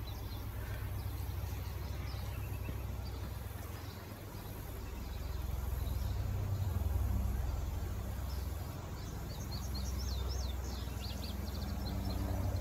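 Outdoor ambience with a low, uneven rumble that swells and fades. Near the end a bird gives a quick run of high chirps.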